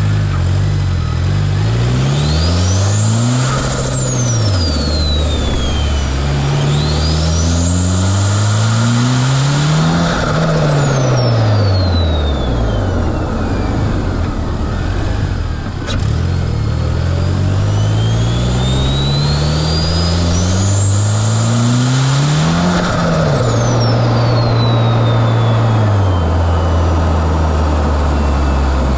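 Turbocharged car engine accelerating hard through the gears three times, the revs climbing in quick steps with each shift. A turbo whistle rises steeply with each pull and falls away when the throttle is lifted.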